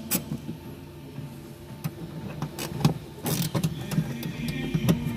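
Quarter-inch ratchet with a 20 Torx bit undoing a screw in a car's plastic wheel-arch liner: a few separate clicks at first, then a quick run of short rasping ratchet strokes from about three seconds in, over a steady low hum.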